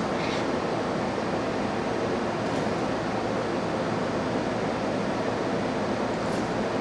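Steady rushing noise with no rhythm, with a few faint light clicks over it.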